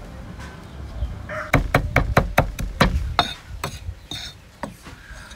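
A large cleaver chopping on a wooden chopping board, mincing pale root pieces. A quick run of sharp knocks starts about a second and a half in, then slows to a few scattered strikes.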